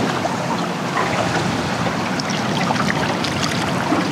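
Choppy water splashing and lapping against a fishing boat's hull: many small splashes over a steady wash of noise.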